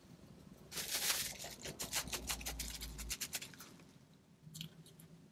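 Plastic cling wrap being handled and crumpled: a dense run of crinkling crackles starting about a second in and lasting about two seconds, with a few fainter crackles near the end.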